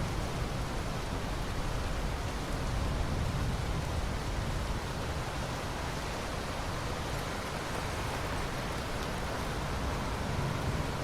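Steady heavy rain, a dense even hiss, with the low rumble of a thunder roll dying away in the first few seconds.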